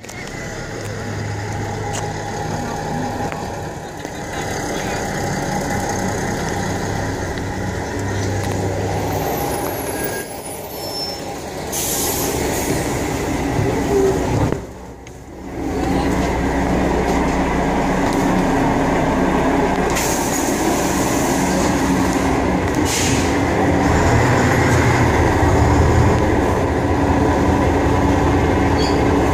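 Ikarus 280 articulated bus's diesel engine running, heard from inside the bus, with short bursts of compressed-air hiss from its pneumatics about twelve seconds in and again around twenty seconds.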